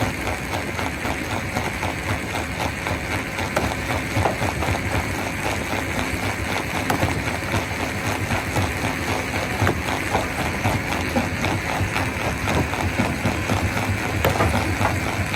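Stone crusher running: a steady mechanical drone under a continuous clatter of many small knocks as rock is crushed.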